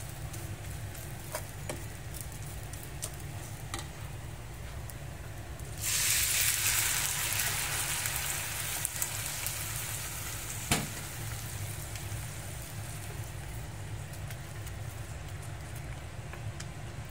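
Water poured from a plastic bottle into a hot pan of toasted basmati rice and whole spices: a sudden loud sizzling hiss about six seconds in that slowly dies away, with one sharp tap near eleven seconds. Before it, a wooden spatula clicks lightly against the pan while stirring the dry rice, over a low steady hum.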